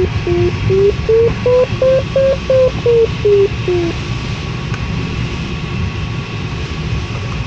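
Glider's electronic variometer beeping about two and a half times a second, signalling rising air. Its pitch falls, rises and falls again as the climb rate changes, and the beeping stops about four seconds in as the lift fades. Under it runs a steady rush of airflow in the cockpit.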